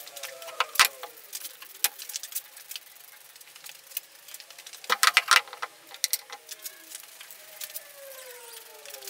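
Aerosol spray-paint cans being handled: sharp clicks and rattles of the cans and their mixing balls, with a quick burst of rattling about five seconds in, and knocks as the cans are set down on the bench.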